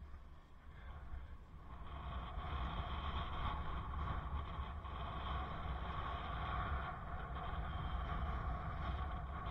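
Bicycle ride heard from a helmet-mounted camera: steady road and wind noise with a deep rumble and a steady mechanical hum, which grow louder about two seconds in as the bike gets under way.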